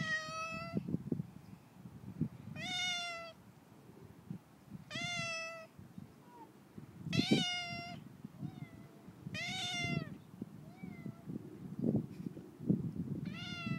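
Grey tabby cat meowing repeatedly, about six meows roughly two seconds apart, each rising and then falling in pitch. Low rustling and soft knocks run underneath.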